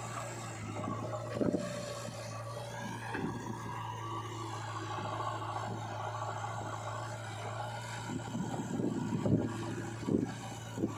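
Diesel engine of a JCB 3DX backhoe loader running steadily while it digs and loads mud, with scattered scrapes and thumps. A cluster of louder thumps comes near the end.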